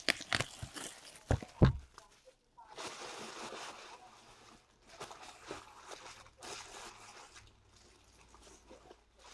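Trading card packs and cards being handled. A few sharp taps and clicks come in the first two seconds, the loudest about one and a half seconds in. Then come stretches of soft rustling as wrappers and cards are shuffled.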